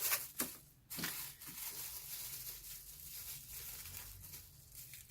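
Packaging being unwrapped and torn open: two sharp crackles, then from about a second in a rustle that slowly tapers off.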